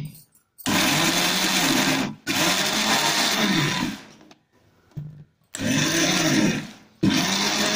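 Electric mixer grinder with a stainless steel jar run in four short pulses of about a second and a half each, grinding a fenugreek-leaf and raw mango chutney; the motor's pitch wavers up and down within each run as the contents churn.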